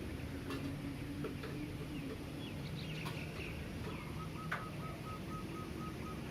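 Early-morning residential city ambience: a steady low hum of distant traffic with scattered bird chirps. From about two-thirds of the way in, a faint, evenly repeated high beeping comes in at roughly three to four beeps a second, and there is a single sharp click just before it.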